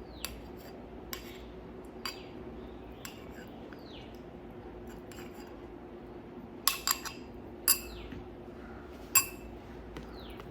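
Tableware clinking against dishes in a series of sharp, ringing clinks: a quick cluster of three about two-thirds of the way through, and the loudest near the end. A steady low hum and faint falling chirps, about one a second, sit underneath.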